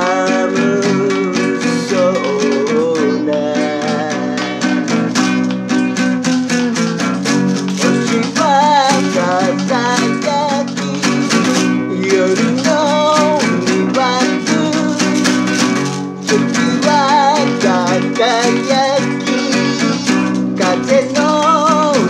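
A man singing, with vibrato on held notes, while strumming a nylon-string classical guitar.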